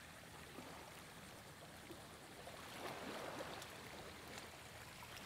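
Faint wash of small waves lapping at the shoreline, a little louder about three seconds in.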